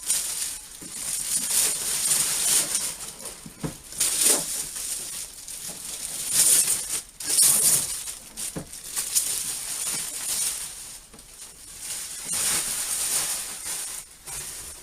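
Cardboard and plastic packaging rustling and scraping as a TV is worked out of its shipping box, the noise swelling and fading over and over.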